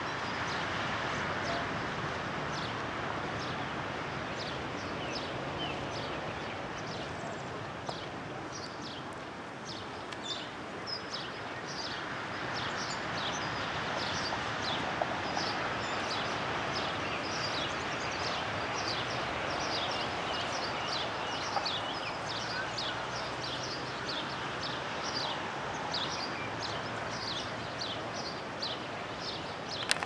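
Bird chirping over and over, short high descending chirps about twice a second, over steady outdoor background noise.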